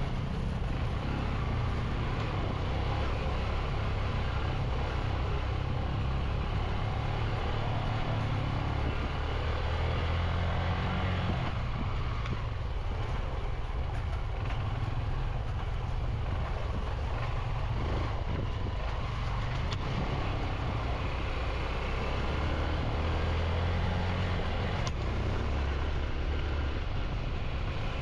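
Motorcycle engine running while riding a rough mountain trail, its low note rising and falling with the throttle, under a steady rushing of wind and trail noise.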